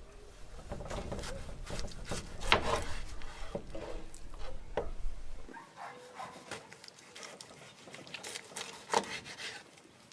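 Irregular knocks, clicks and rubbing or scraping sounds of handling things, over a low hum that cuts off suddenly about five and a half seconds in.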